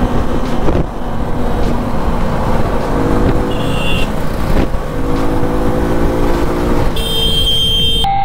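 Suzuki V-Strom SX's single-cylinder 250 cc engine running at road speed under heavy wind rush on the microphone. Near the end the sound switches abruptly to music.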